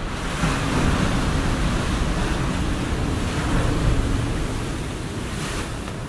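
Atlantic surf: a wave breaking and washing up the beach, swelling about half a second in and fading away over the last two seconds.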